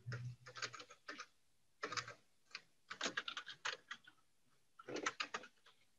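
Computer keyboard typing: clusters of rapid keystrokes in four or five short runs, with brief pauses between them.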